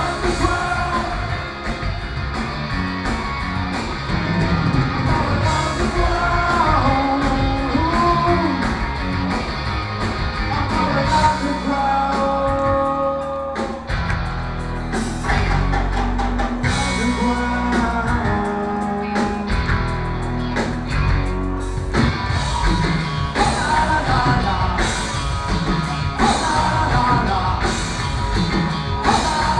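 Live rock band playing with lead vocals, electric guitars and a drum kit, heard from the audience at a concert.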